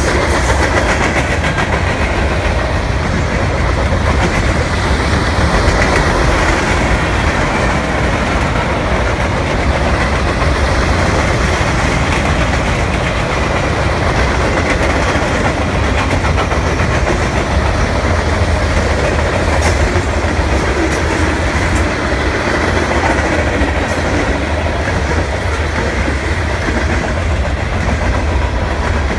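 A CN train rolling steadily past, steel wheels running on the rails with a loud, even rumble.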